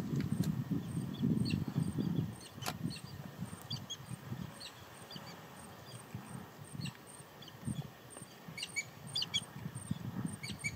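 Birds chirping in short, scattered calls over an uneven low rumbling noise, which is loudest in the first two seconds.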